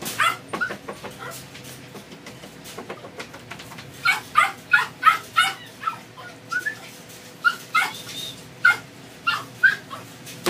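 Doberman puppy yipping in short, high cries, with a quick run of them about four seconds in.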